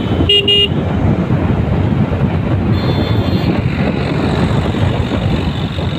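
Steady wind and road noise from riding a two-wheeler on a rough highway, with a short vehicle-horn beep about half a second in.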